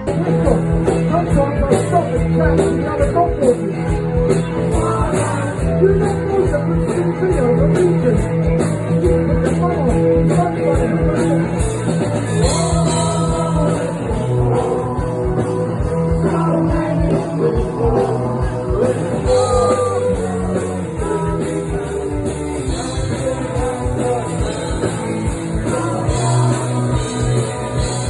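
Rock music with a steady beat, guitar-led, possibly with a singing voice.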